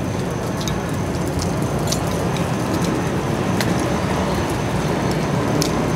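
Steady street noise: a low rumble of passing road traffic together with rain, with scattered light ticks through it.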